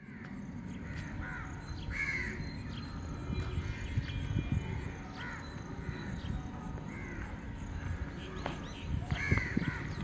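Crows cawing several times, the loudest caws about two seconds in and near the end, over a steady low rumble.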